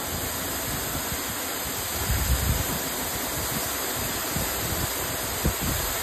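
Aber Falls waterfall rushing close by: a steady hiss of falling water, with a brief low rumble about two seconds in.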